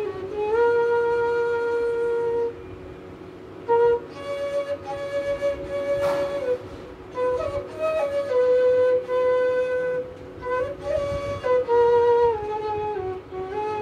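Bansuri (side-blown bamboo flute) playing a slow shabad melody: long held notes that step and slide between pitches, with a short break about two and a half seconds in. A steady lower tone sounds underneath throughout.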